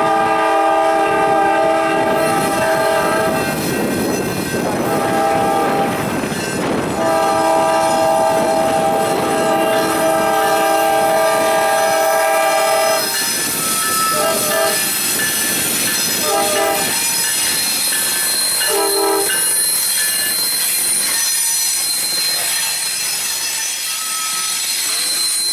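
Norfolk Southern diesel locomotive's air horn sounding its chord in long blasts, then three short ones, as the freight train rolls past with wheels clattering and squealing on the rails.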